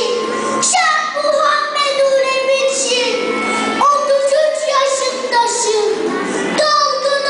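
A young boy's voice amplified through a microphone, reciting a poem in a chanted, sing-song delivery with long held, melodic phrases.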